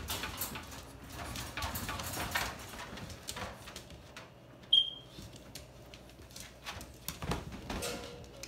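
Puppies' claws clicking and scuffling on a tile floor as they move about, with one short high-pitched squeak about halfway through, the loudest sound.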